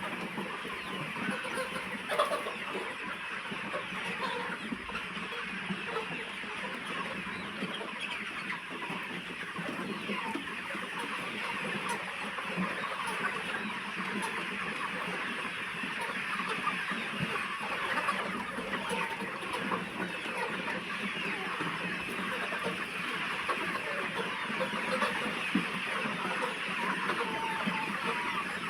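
A large flock of chickens clucking and calling all at once in a continuous, overlapping din, with a faint steady low hum beneath.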